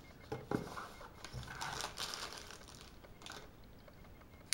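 Clear plastic wrapping crinkling and rustling in bursts as a folding knife is handled and unwrapped from its plastic sleeve, ending in a single sharp click at the very end.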